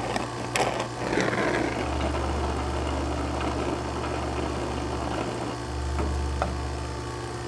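A low, steady hum with a few light clicks and a short hiss about a second in, as a hand works the valve on a brass refrigeration gauge manifold.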